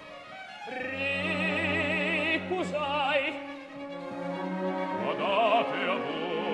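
Opera: an orchestra playing sustained notes under singers' vibrato voices. The music is quiet at first and fills out from about a second in.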